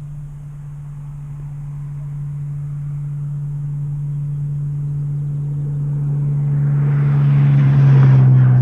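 A machine's steady low hum growing louder over several seconds, with a brief rush of hissing noise near the end.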